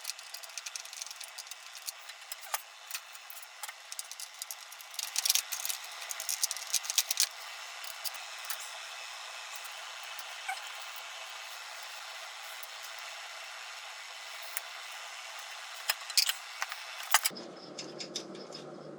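Small metal parts and hand tools clicking and rattling during carburetor removal on a Harley-Davidson Evolution engine, with bunches of clinks about five to seven seconds in and again near the end, over a steady hiss.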